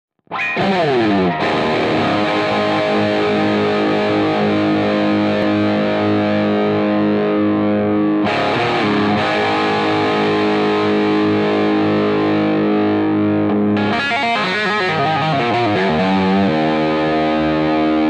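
Rock instrumental with distorted electric guitar playing held chords. It opens with a falling pitch slide, and the chords change about eight seconds in and again near fourteen seconds.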